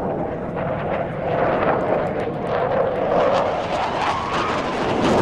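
Military jet roaring overhead in a flypast, loud and crackling, with a faint rising whine about four seconds in.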